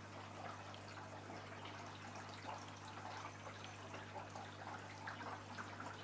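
Faint trickling and dripping of aquarium water, many small drips and splashes over a steady low hum.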